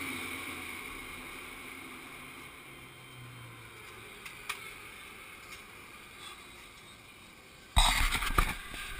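Faint steady background noise with a single small click about halfway through. Near the end comes a sudden loud spell of rubbing and knocking: a hand handling the bike-mounted action camera.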